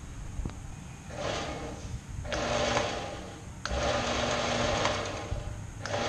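Klutch 4x6 metal-cutting bandsaw switched on about a second in, its motor and worm-gear drive running the blade with no cut. The machine noise swells and dips briefly twice as it runs.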